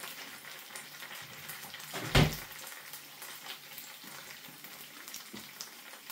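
Two eggs frying in hot oil in a frying pan: a steady sizzle with small scattered pops, broken about two seconds in by one dull thump.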